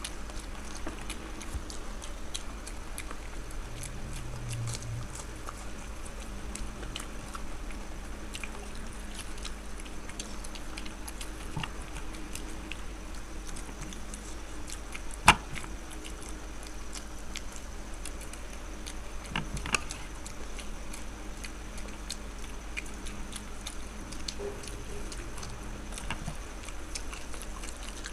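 Chewing and small clicks of people eating egg devils, with one sharp click about halfway through, over a steady low hum.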